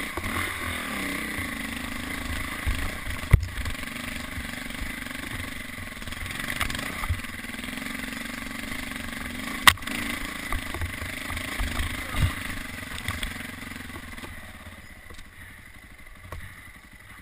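KTM 400 four-stroke single-cylinder dirt bike engine running on a trail ride, the throttle rising and falling, with two sharp knocks about three seconds in and again near ten seconds. The engine gets quieter over the last few seconds as the bike slows.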